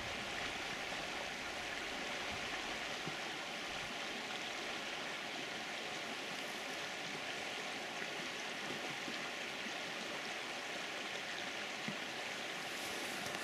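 Steady sound of running stream water, an even rushing hiss with no breaks.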